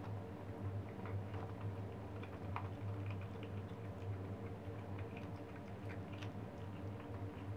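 Kittens chewing on dead newborn rabbits: irregular small clicks and crunches of teeth on flesh and tiny bones, over a steady low hum.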